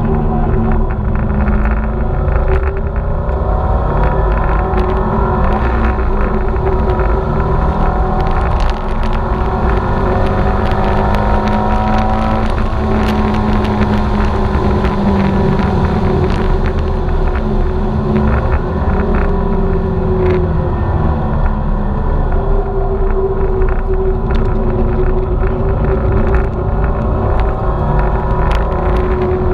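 Turbocharged Subaru flat-four engine under hard driving on a race track, its pitch rising and falling again and again as it revs up and comes off through the gears.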